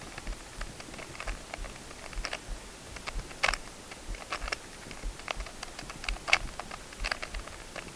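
A Rubik's cube being turned by hand through an algorithm: a run of irregular plastic clicks and clacks as its middle slice and top layer are snapped round.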